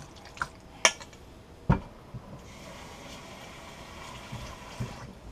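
A few clicks and a thump as a stainless steel mixing bowl is handled at the sink, then a kitchen tap runs water into the bowl for about two and a half seconds before shutting off, thinning the fish paste.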